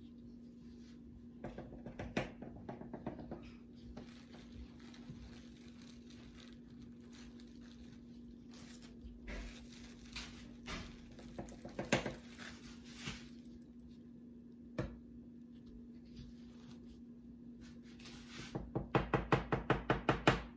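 Scattered soft knocks and taps as cake pieces are cut and trimmed away from around a cut-out number shape, then a quick run of about five knocks a second near the end, over a steady low hum.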